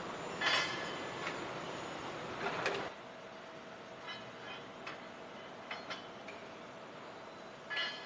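Automated production line for steel track shoes running with a steady hum. Steel plates clank on the roller conveyor and in the machine: loud clanks about half a second in, around two and a half seconds and near the end, with lighter clicks in between.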